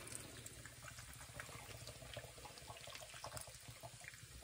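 Stout pouring from a can onto chunks of beef in a slow-cooker pot: a faint, steady trickle.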